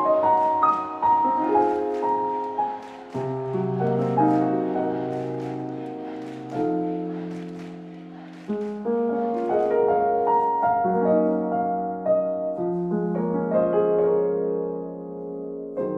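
Background music: a slow solo piano piece, single notes and chords struck and left to ring.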